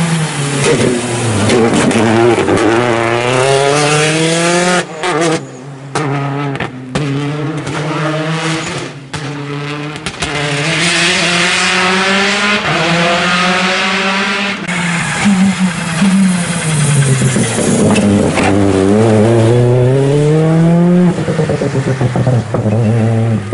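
Rally car's engine at full throttle, revving up through the gears with a drop in pitch at each upshift. Partway through, the engine note cuts off sharply for a moment several times, then the car accelerates hard again through more upshifts.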